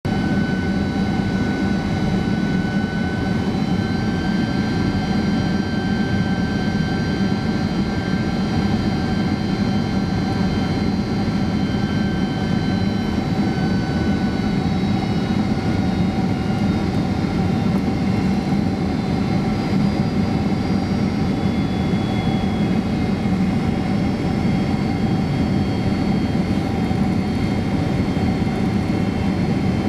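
Cabin noise inside a Boeing 767-300 airliner on descent: a steady rush of airflow and jet-engine noise, heard from a forward seat. Faint, steady whining tones sit above the rush.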